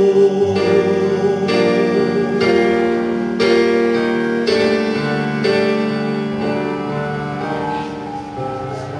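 Keyboard music with a piano-like sound, playing slow held chords that change about once a second and grow slightly quieter toward the end.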